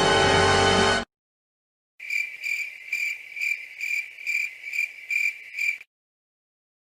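Crickets chirping: a high, even chirp repeating about twice a second for about four seconds, then stopping abruptly. Before it, a loud music clip cuts off about a second in, followed by a second of silence.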